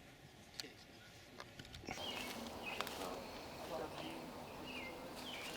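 Outdoor background with birds chirping and faint voices; the background noise steps up abruptly about two seconds in.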